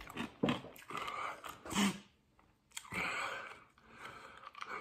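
A man breathing hard through his mouth, with five or six forceful breathy blows and sharp intakes of air and short gaps between them, the longest about three seconds in. His mouth is burning from a 3-million-Scoville pepper-extract hot sauce.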